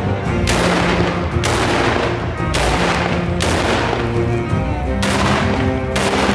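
A volley of black-powder muskets fired one after another into the air: six sharp shots, each with a fading echo, about a second apart, over background music.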